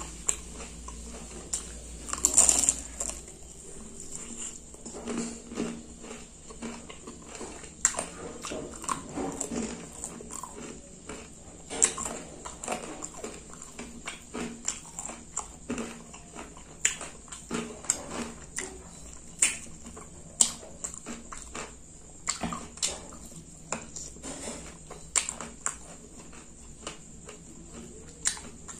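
Close-up eating sounds: wet chewing and lip smacking on sauce-coated fried chicken, with sticky clicks as fingers pull the meat apart. The clicks and smacks come irregularly, a few every second, loudest about two to three seconds in.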